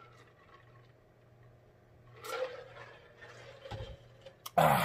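A man drinking from a large glass mug: soft gulps and swallows of liquid, then a short loud vocal sound near the end.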